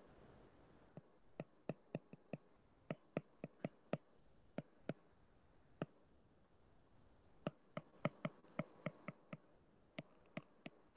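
Stylus tip tapping and clicking on a tablet's glass screen while handwriting: a run of faint, sharp clicks at an uneven pace, in clusters with short pauses.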